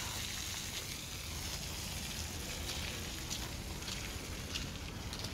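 Steady outdoor background noise with a low rumble, and faint footsteps on a wet dirt road ticking every half second to a second.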